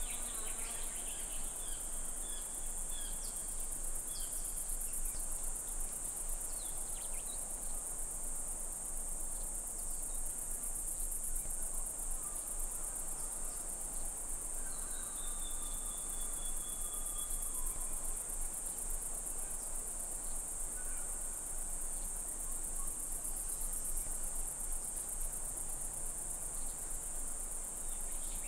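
Outdoor insect chorus, a steady high-pitched trill with a fine rapid pulse. Over it come a few short chirps in the first seconds and a long, slightly falling whistle about halfway through.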